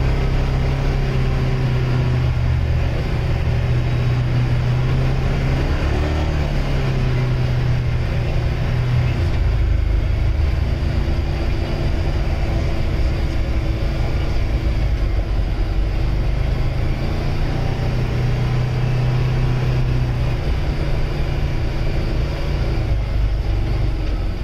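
ATV engine running at road speed with wind and tyre noise, its hum easing off and picking up again as the speed changes.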